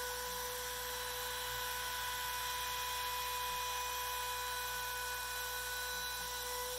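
Makita trim router spindle on a CNC router gantry running at speed: a steady high-pitched whine over a hiss.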